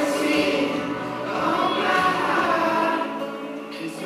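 A girl singing into a microphone.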